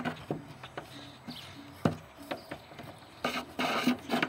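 Solar-panel wire rubbing and scraping against the edge of a drilled hole in a van roof as it is fed down inside, with scattered light knocks and a longer stretch of scraping near the end.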